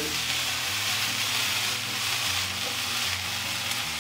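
Strips of coypu (nutria) meat frying in a pan, sizzling steadily.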